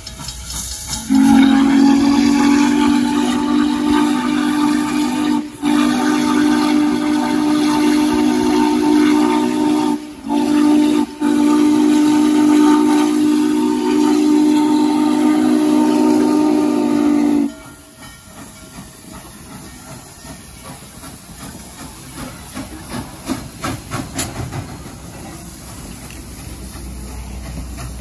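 Steam locomotive whistle blown in one long, low, steady blast, broken by three very short gaps, cutting off about 17 seconds in. Quieter steam hiss follows.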